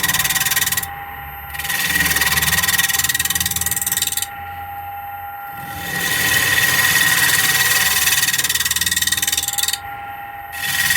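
Wood lathe running with a gouge cutting into a spinning mahogany bowl blank, hollowing out the inside. The loud cutting hiss stops three times, briefly about a second in, for about a second and a half in the middle, and again near the end, as the tool comes off the wood. The lathe's steady hum carries on through those gaps.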